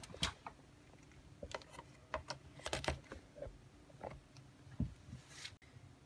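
Faint, scattered clicks and knocks of plastic plugs and cables being handled, as a USB wall charger is plugged into a power strip to charge a phone.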